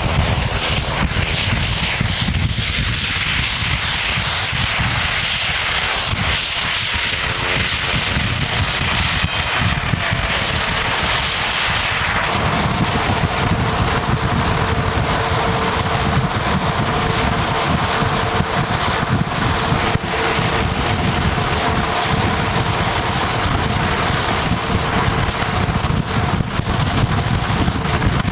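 CASA 212-400's twin turboprop engines running on the ground, a loud steady propeller and engine drone. The pitch of the engine whine shifts during the first dozen seconds, then holds steady.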